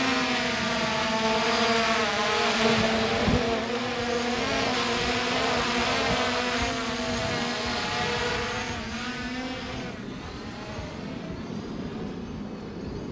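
Holy Stone HS700E quadcopter drone in flight, its motors and propellers making a steady buzzing hum whose pitch wavers slightly as it is steered. The buzz grows fainter about ten seconds in.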